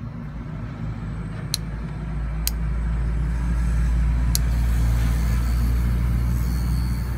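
Small battery-powered electric motor running steadily, spinning a motorbike carburetor's float needle in its seat to lap it with a paste of incense ash and petrol, the fix for a needle that no longer seals and lets fuel run out of the overflow line. The hum grows louder over the first few seconds, with three sharp ticks.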